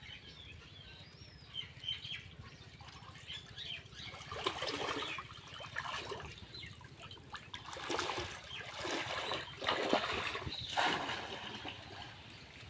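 Pond water sloshing, splashing and trickling as a person wades and works a bamboo basket trap in shallow water, quieter at first, then in irregular louder bursts from about four seconds in.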